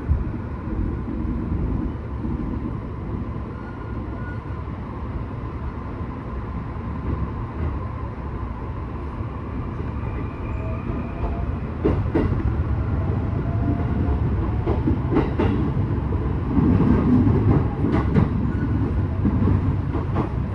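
Electric commuter train running: a steady rumble of wheels on rail that grows louder about twelve seconds in, with a few clicks of wheels crossing rail joints and a faint rising motor whine.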